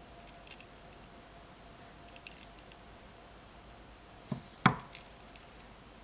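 Glass beads on stretch bracelets clicking and knocking against each other as they are handled, with a few faint clicks and then two sharper knocks about four and a half seconds in, the second the loudest.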